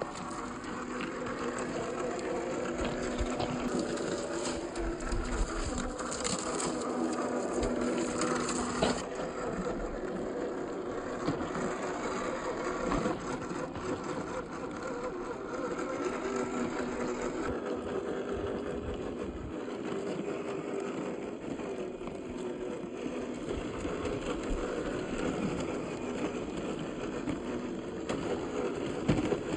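Electric motor and gearbox of a 1/12-scale MN86K G500 RC car running, a steady whine with gear chatter and rattles from the chassis. The whine fades out about nine seconds in and returns later.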